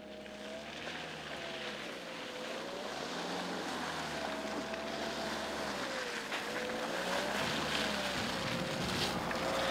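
Land Rover Freelander 2 SUV crawling along a rutted muddy track, its engine running with a pitch that rises and falls as it works over the bumps. Hiss from the tyres and air grows louder as it nears.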